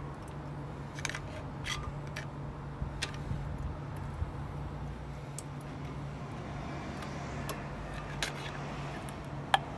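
A long screwdriver prying and scraping at the collapsed wheel bearing inside a Land Rover Discovery 1 rear hub, giving scattered sharp metallic clicks, the loudest near the end. A steady low hum runs underneath.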